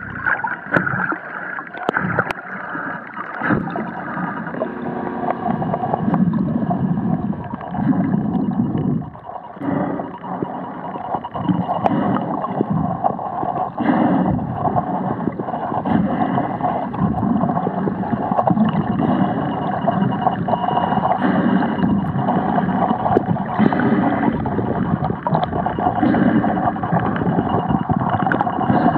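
Muffled underwater noise picked up by a camera held below the surface: water moving and gurgling against the camera, swelling and easing unevenly, with a faint steady high tone.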